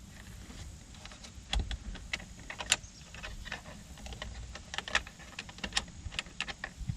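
Irregular small clicks and taps of hard plastic parts being handled and pressed into place, as a light-up door handle cup is fitted into a car's interior door trim.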